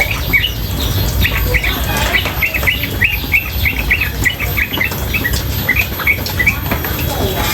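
Female yellow-vented bulbul calling in a quick, unbroken run of short chirps, about three or four a second, over the steady low rush of running water.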